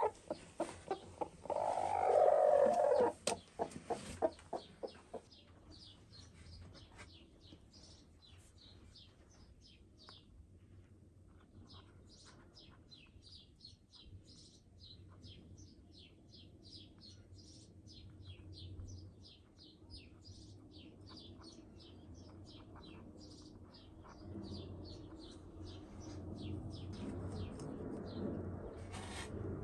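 A sitting hen gives a loud protesting call with a quick run of clucks in the first few seconds as a hand reaches under her. Short high chirps then repeat about twice a second. Near the end there is rustling of hay as the eggs in the nest are handled.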